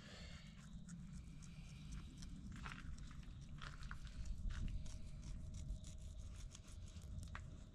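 Fillet knife cutting into a mangrove snapper: faint scattered crunching and scraping as the blade works through the scales and along the bones, over a low steady rumble.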